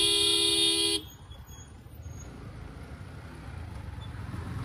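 A vehicle horn sounding one steady honk that cuts off sharply about a second in, followed by quieter engine and road noise from moving traffic.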